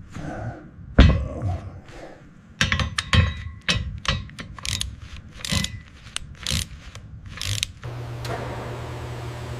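Irregular run of sharp mechanical clicks and clunks, the loudest about a second in, then a steady low hum from near the end.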